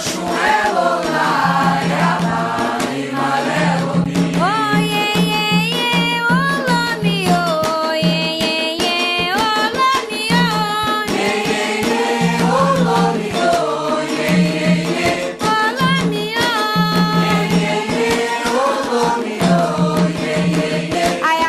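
Candomblé chant (ponto) for Xangô: voices singing a melodic line over driving drum and rattle percussion.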